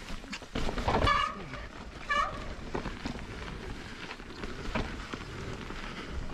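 Mountain bike rolling down rock and onto a dirt trail, with tyre rumble and rattle from the bike. The disc brakes squeal briefly twice, about a second in and about two seconds in.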